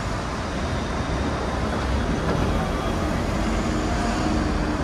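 Hong Kong double-decker electric tram running along the street, heard from the upper deck: a steady low running noise mixed with surrounding road traffic.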